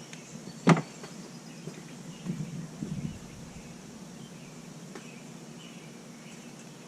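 A single sharp knock about a second in, then a few softer knocks a little later: hand tools and metal parts being handled.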